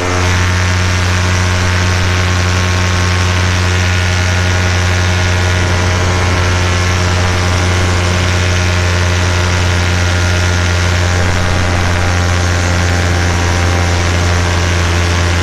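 Paramotor's Minari 180 two-stroke engine and propeller running in flight at a steady throttle, a loud, even drone that holds one pitch, heard close from the pilot's harness.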